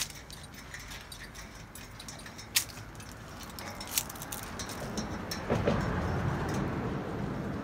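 A dog's claws and a person's shoes clicking and knocking on a steel-grate catwalk as they climb, with the jingle of collar tags and leash hardware. A louder low rushing noise swells up over the last two seconds.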